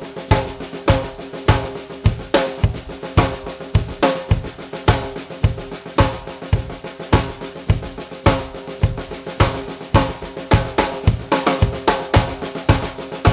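Custom 14" x 5.5" rock maple snare drum played in a steady beat on a drum kit, with kick drum thumps under many strokes. The snare is undamped, so its head and shell keep ringing between hits.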